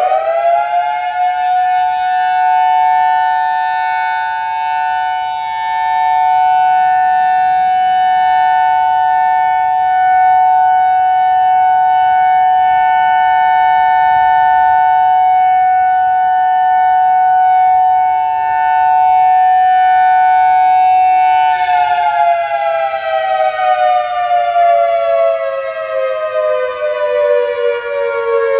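Whelen WPS-4004 electronic outdoor warning siren sounding a steady dual-tone alert, two pitches held together as a chord. It finishes rising to pitch in the first second, holds steady for about twenty seconds, then winds down in a slow falling glide near the end.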